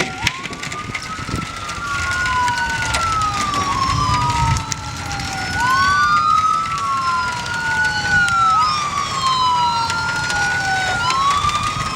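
Emergency vehicle sirens wailing, two of them overlapping out of step, each rising and falling slowly.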